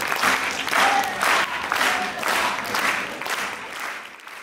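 Standing audience applauding, the clapping surging in an even rhythm about twice a second, then fading out near the end.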